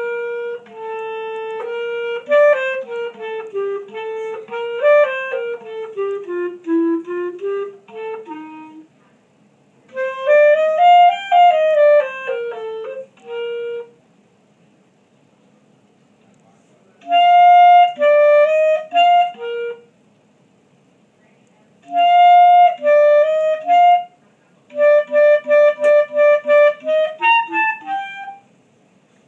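Solo clarinet playing a piece in phrases separated by short rests, the melody moving stepwise and in leaps. Near the end comes a run of quick repeated short notes, about a dozen.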